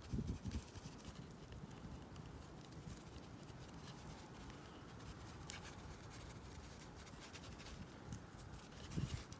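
Faint handling sounds from a hafted stone axe's wooden handle and pitch-covered joint being turned over in the hands: light rubbing and ticking, with soft low knocks at the start and again just before the end.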